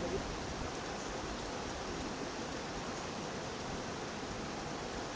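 Flowing water of a spring, a steady even rush.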